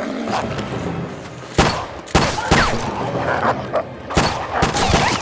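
Four pistol shots in two quick pairs, with wolves growling between them.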